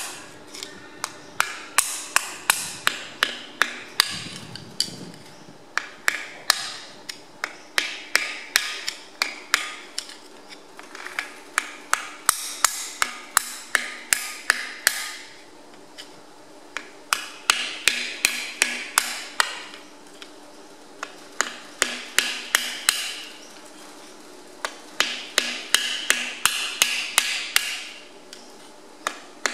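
Hand hammer striking a rounded-edge drift driven down inside a cylinder liner of a Perkins AD3.152 diesel engine block, working loose a liner that is coming out harder than usual. Sharp metallic blows ring out in quick runs of about three or four a second, broken by short pauses.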